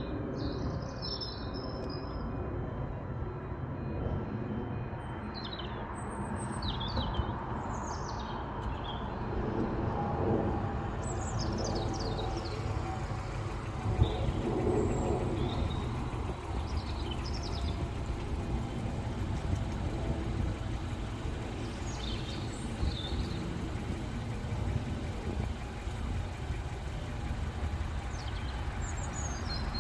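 Small birds chirping on and off over a steady low rumble, with one sharp knock about halfway through.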